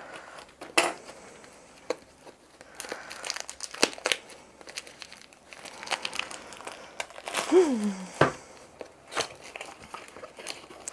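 Plastic shrink-wrap film crinkling and tearing as it is cut and peeled off a small cardboard box, with many irregular crackles and sharp clicks.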